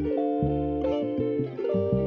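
Background music: plucked guitar chords over a low bass line, the chords changing every half second or so.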